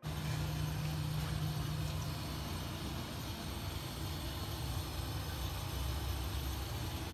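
Steady kitchen stove noise: a low hum with an even rushing hiss while a gas burner heats a wok of oil for deep frying.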